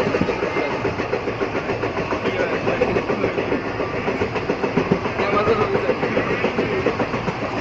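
Passenger train running along the track: a steady, continuous rumble of the coach on the rails.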